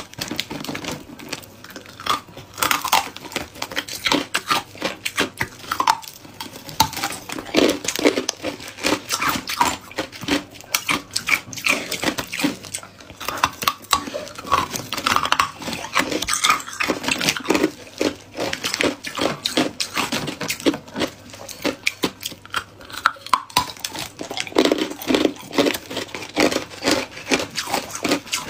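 Crushed ice crunched between the teeth in quick, irregular crackles, mixed with the crinkle of a plastic zip-lock bag as fingers dig pieces of ice out of it.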